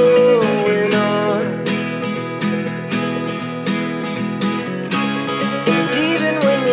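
Background song with strummed acoustic guitar.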